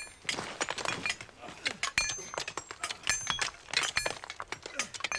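Rapid, irregular metallic clinking and jingling throughout, many small sharp knocks of metal on metal, some ringing briefly.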